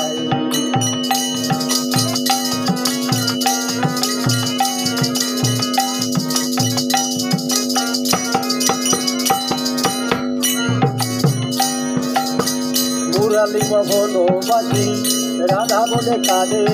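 Instrumental passage of Bengali folk devotional music: a steady held drone note under a hand drum beating a regular rhythm, with jingling percussion on top. Near the end a wavering melody line comes in over the drone.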